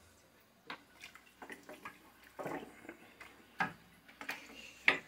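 A wooden spoon stirring sliced onions into watery stock in a large aluminium pot, with irregular light knocks of the spoon against the pot and small splashes of liquid.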